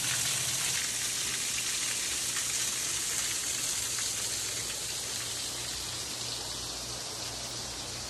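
Small waterfall spilling in thin streams onto rocks and a shallow pool, a steady rain-like spatter and hiss that eases off slightly toward the end.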